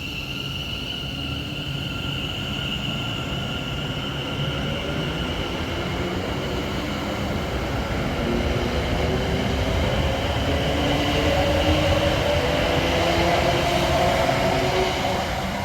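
Passenger train running at the station platform, its rumble growing louder to a peak near the end, with a whine whose pitch climbs steadily as the train gathers speed.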